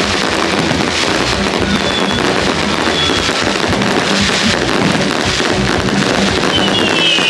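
Fireworks display: a dense, continuous crackle of bursts, with several whistles falling in pitch near the end.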